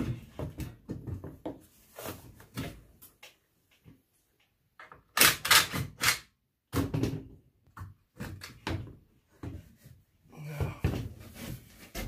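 Irregular knocks, clunks and scrapes from a push mower's engine and metal deck being handled and shifted. A loud clatter of several sharp strokes comes about five seconds in.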